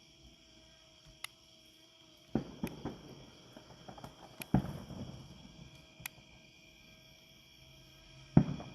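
Distant fireworks going off: several dull booms with low rumbling tails, the loudest near the end. Short sharp clicks and a faint steady high whine run underneath.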